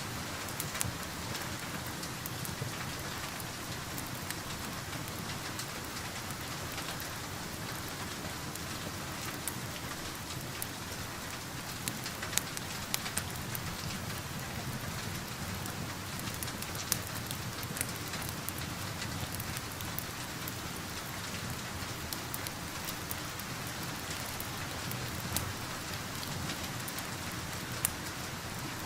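Steady rain falling, with scattered sharp pops and crackles from a wood fire every few seconds.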